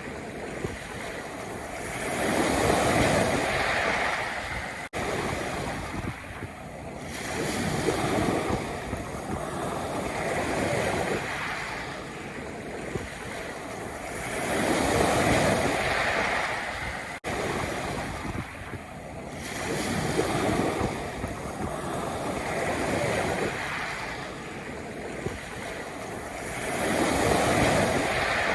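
Sea waves breaking and washing back on a pebble beach, swelling and fading about every four to five seconds.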